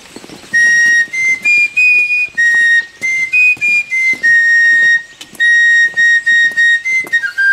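A fife playing a march tune for the color guard: a high, clear melody of held notes that steps between a few nearby pitches and keeps returning to one main note, with a lower note near the end.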